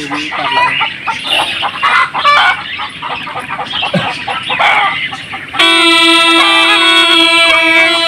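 Chickens clucking, then about two-thirds of the way in a snake charmer's gourd pungi (been) starts playing abruptly: a steady reedy drone with a shifting melody above it.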